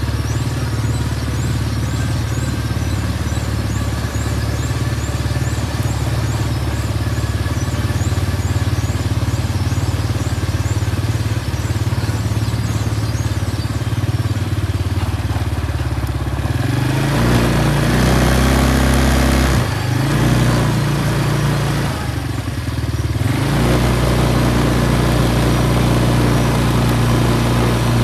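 Quad bike (ATV) engine running as it is ridden at low speed, then pulling harder in two stretches of a few seconds each, from about two-thirds of the way in, with a brief drop between them, before easing back to a steadier run.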